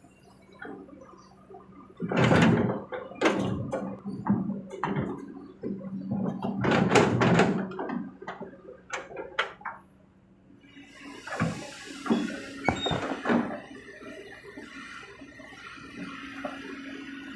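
Kobelco SK200 excavator working, its diesel engine running under a series of heavy knocks and a rushing crash as earth and stone are dropped into a dump truck's bed. Lighter clunks follow near the end.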